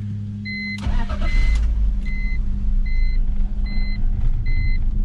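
BMW E46 inline-six cranking and catching about a second in, then running unevenly just after fresh spark plugs and new intake boots have gone in. A dashboard warning chime beeps six times, evenly, alongside it.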